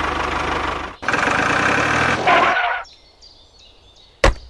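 A vehicle engine running, broken by a short gap about a second in, then cutting off at about three seconds; a single sharp click comes a little before the end.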